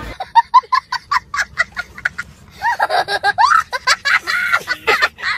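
A young boy laughing hard: a quick run of high-pitched laughs, then longer laughter that rises and falls in pitch.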